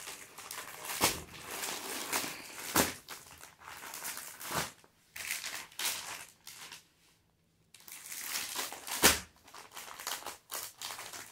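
Clear plastic packaging crinkling and rustling as it is handled, with several sharp, loud crackles and a short pause about two-thirds of the way through.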